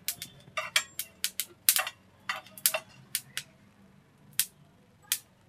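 Melon seeds popping and crackling as they dry-roast in a hot frying pan: about a dozen sharp, irregular pops, sparser toward the end, the sign that the seeds are toasted.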